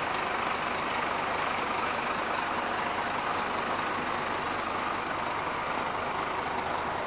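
Scania P230 truck's diesel engine idling steadily, heard from beside the box body.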